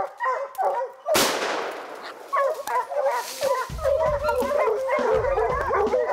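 A pack of bear hounds baying at a black bear they have treed. A single lever-action rifle shot goes off about a second in, the loudest sound, ringing out after the crack. The hounds keep baying after the shot.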